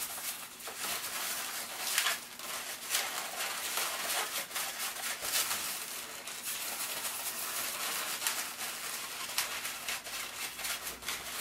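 Inflated 260 latex modelling balloon rubbing and squeaking in the hands as it is twisted into small petal bubbles, in short irregular strokes.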